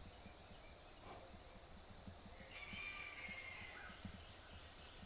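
Faint insect chirping, an even rapid pulse of about eight high chirps a second, over quiet room tone, with a faint bird call near the middle.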